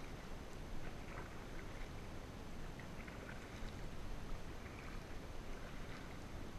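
Water splashing and dripping lightly around a kayak as it is paddled on calm water, in short irregular bits over a steady low rumble.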